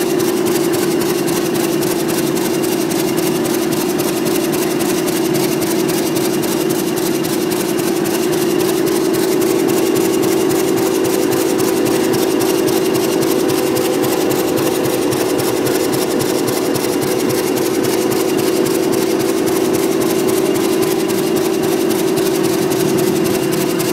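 Class 31 diesel-electric locomotive's English Electric 12SVT V12 diesel engine idling steadily shortly after start-up, with one strong unchanging droning note.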